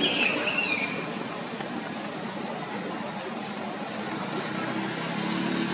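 A baby long-tailed macaque gives one short, wavering, high-pitched squeal in the first second, over a steady background noise.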